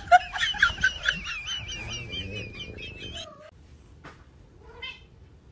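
A high, wavering animal cry lasting about three seconds, then stopping, followed by a few faint clicks.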